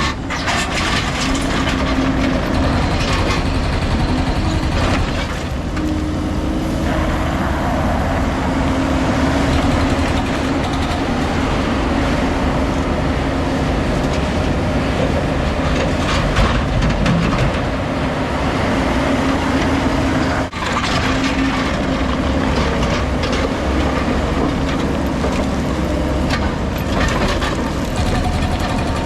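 Heavy diesel construction machinery running continuously with a steady drone, and frequent knocks and clatter of work over it.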